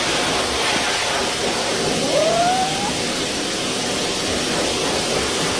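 A puppy gives one short, thin rising howl about two seconds in, over a loud steady hiss.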